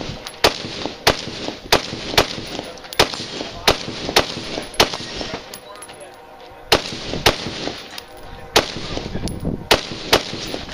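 Rifle shots fired in quick succession, about a dozen, often in pairs roughly half a second apart, with a pause of about two seconds midway.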